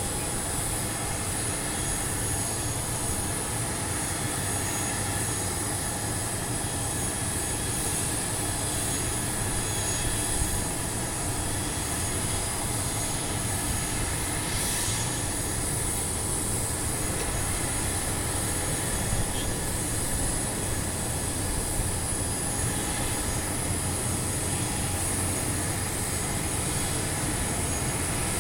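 Steady whine and rushing noise of a parked jet airliner's turbine running on the apron, with a low rumble underneath and no change in pitch.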